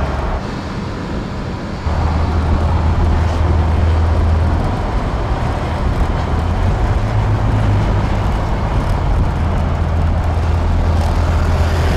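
Husqvarna Vitpilen 701's single-cylinder engine pulling steadily at road speed, with wind and road noise over it. The sound gets louder about two seconds in, and the engine note rises slightly around seven seconds in.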